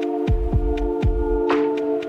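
Electronic music: a held synth chord over deep, pitch-dropping kick drums, with a clap or snare hit about a second and a half in and light ticking hi-hats.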